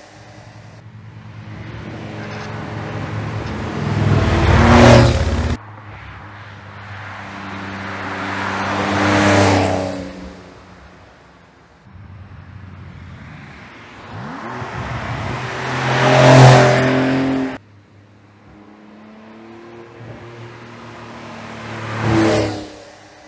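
2022 Porsche 911 Carrera GTS's twin-turbocharged flat-six with sport exhaust in about four separate drive-bys, each swelling to a loud peak as the car passes, and two of them cut off abruptly.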